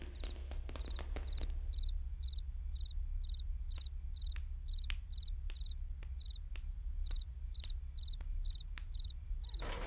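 Night ambience of crickets chirping: short chirps at one steady high pitch, about two a second, over a low steady hum, with a few faint clicks.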